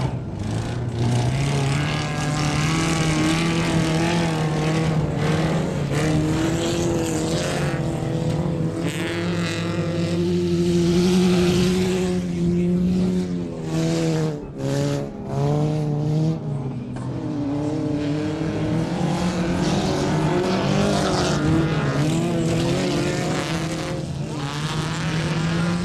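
Dirt-track autocross cars racing, engines revving hard, the pitch climbing and dropping again and again through gear changes, with a brief dip in level about halfway through.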